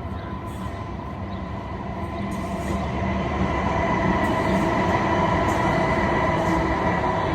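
Light rail train running past with a steady whine, growing louder from about three seconds in and staying loud.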